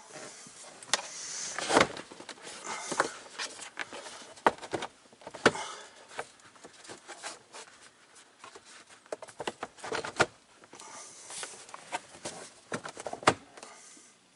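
Hard plastic glove compartment being worked into its dashboard opening: irregular scraping and rubbing of plastic on plastic with a string of clicks and several sharp knocks.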